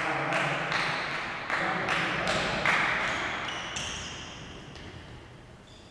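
Table tennis rally: about five sharp clicks of the ball off bats and table, each ringing on in an echoing hall, stopping about three seconds in.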